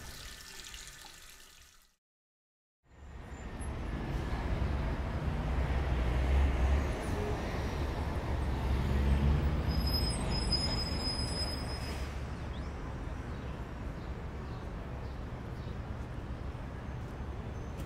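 Running tap water fades out, then after a second of silence comes steady street-traffic rumble from a park roadside, with a faint high-pitched squeal for about two seconds near the middle.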